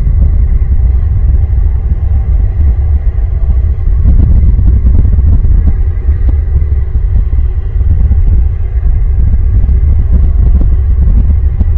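Loud, steady low rumble of wind buffeting an outdoor microphone.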